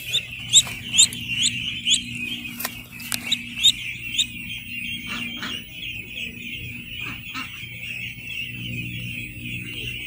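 A flock of young ducklings peeping continuously. Over the first four seconds or so, one nearby bird gives a run of loud, rising peeps.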